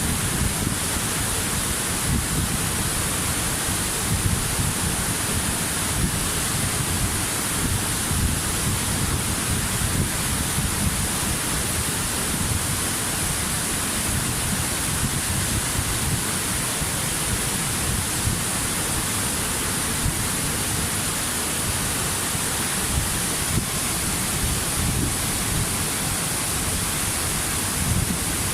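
Waterfall: a steady, continuous rush of falling water with a low rumble beneath it.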